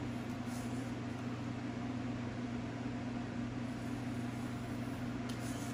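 Steady low electrical-sounding hum over a light hiss of room noise, with two faint brief high swishes, about half a second in and near the end.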